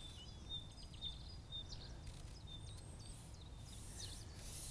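Small birds chirping and trilling in short, high phrases over a low, steady outdoor rumble, with a soft hiss coming in near the end.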